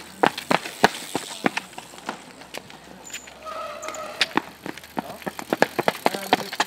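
Quick, sharp clicks of cycling shoes striking brick paving as cyclocross riders run on foot with their bikes, mixed with knocks from the bikes. A voice calls out briefly about halfway through.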